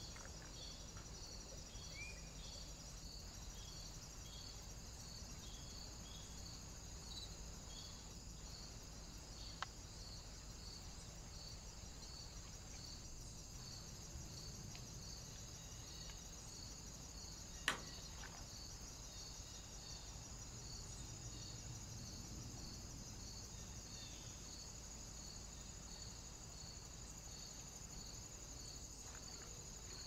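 Faint steady insect chirring, pulsing at an even high pitch a little more than once a second, over low outdoor hiss. A sharp click comes about ten seconds in, and a louder one a little past halfway.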